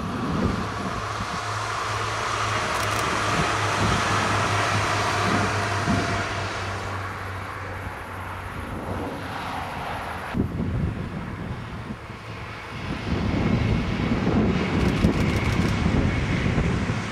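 Diesel multiple unit passing by: a steady engine hum under rolling noise that swells about four seconds in and then fades. After a change about twelve to thirteen seconds in, a second diesel train is heard passing.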